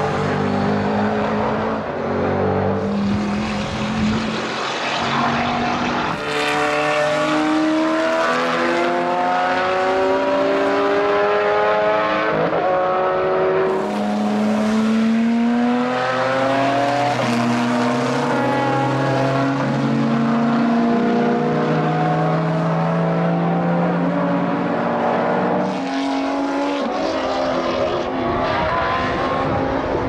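Several GT race cars' engines accelerating hard, one after another. The pitch climbs and drops back at each upshift, and the overlapping engine notes of different cars run on without a break.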